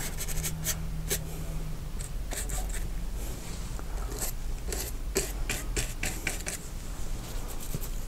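Fan brush bristles scratching against canvas on foam board in short, irregular strokes, with a faint low hum underneath.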